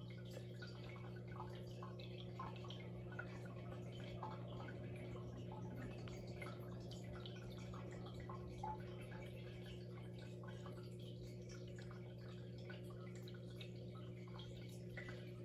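Aquarium filter running faintly: a steady low hum with light, irregular drips and trickling of water.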